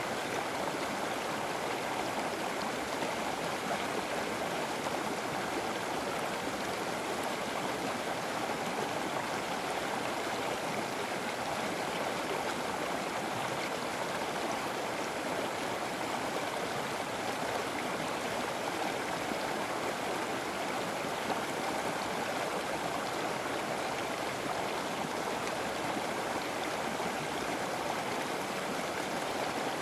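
River water flowing steadily over rocks, an even rushing sound with no breaks.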